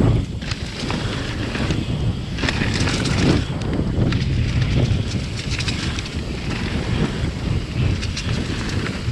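Wind noise on the microphone over the rumble of a mountain bike rolling fast down a dirt trail, with scattered clicks and rattles from the bike.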